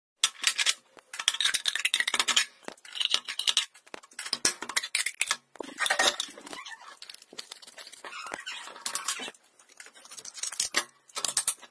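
Scissors cutting through a thin metal drink can: irregular bursts of snipping, crinkling and clinking of the can metal, with short pauses between cuts.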